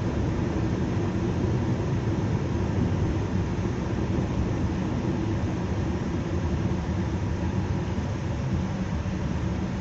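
Steady low rumble of engine and road noise heard from inside the cabin of a moving car.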